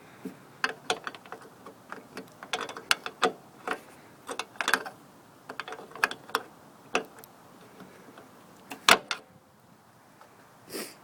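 Irregular clicks, taps and knocks of hands handling and fitting a car's plastic front grille, with one sharper knock about nine seconds in.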